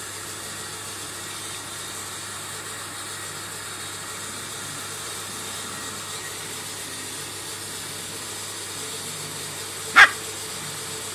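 A puppy gives one short, high yip near the end, over a steady background hiss.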